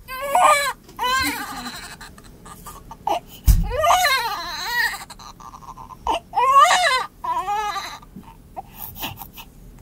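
Newborn baby crying in repeated wavering wails, several short cries with the longest about three and a half seconds in, and a low thump at the start of that cry.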